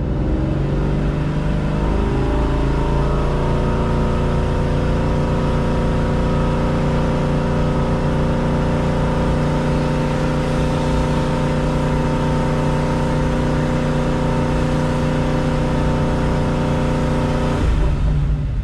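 Supercharged 5.0 L V8 of a 2017 Ford Mustang GT revved up to about 3500 rpm over the first few seconds, held steady there, then let back down near the end, heard from inside the cabin. This is the 3500 rpm hold step of the engine's post-tune relearn procedure.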